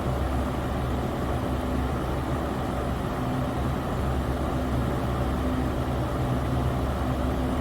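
Electric fan running steadily: a constant whoosh of moving air over a low motor hum.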